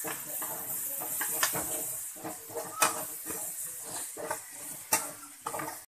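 Tomatoes, onions and green chillies frying in oil in a metal pan with a steady sizzle while a spatula stirs them. The spatula scrapes and knocks against the pan, sharpest about a second and a half in, around three seconds in and near five seconds.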